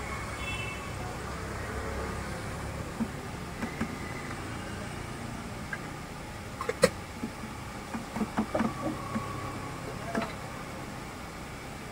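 Scattered sharp clicks and knocks over a steady low background hum: one sharp knock about seven seconds in, then a quick run of several knocks a second or so later, and another near the end.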